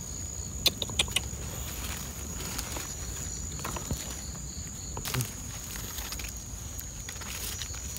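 A steady high-pitched insect drone, with a few brief crackles and snaps of movement through dry undergrowth, the loudest about a second in and another about five seconds in.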